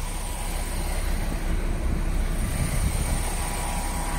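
DAF XF 480 truck's PACCAR MX-13 six-cylinder diesel engine idling steadily with a low rumble.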